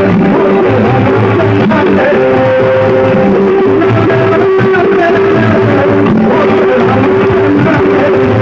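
Loud music played through a large DJ sound system, with a pulsing bass under a sustained, plucked-string-like melody.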